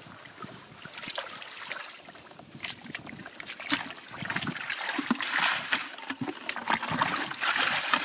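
Muddy water sloshing and splashing as a plastic bucket is scooped through a shallow pool and emptied out, in short repeated splashes that grow louder and busier in the second half.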